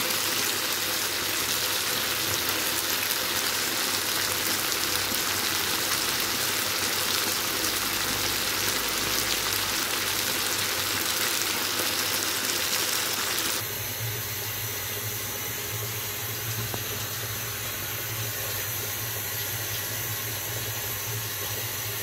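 Stew chicken sizzling and bubbling in the pot, a dense steady hiss. About 13 to 14 seconds in it drops suddenly to a quieter steady hiss with a low hum.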